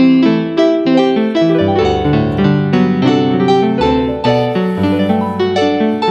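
Background piano music: a steady run of notes at a gentle pace.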